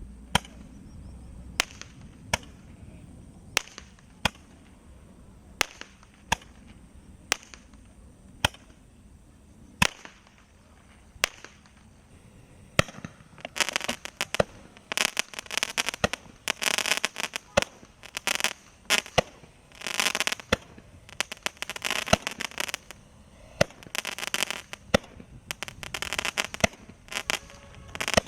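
Consumer fireworks going off: a string of single sharp bangs about once a second, then from about halfway dense, loud crackling in repeated bursts.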